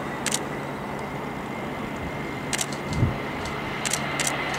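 Airbus A320-family twin-jet on short final with landing gear down, its engines giving a steady rushing noise with a thin high whine, punctuated by several short sharp clicks.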